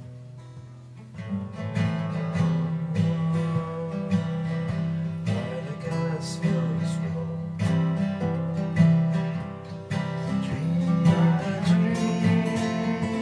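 Acoustic guitar strummed in a music jam, getting louder about a second in.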